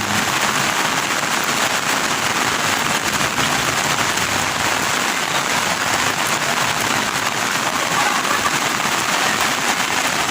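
Heavy rain falling, a steady, dense hiss of drops.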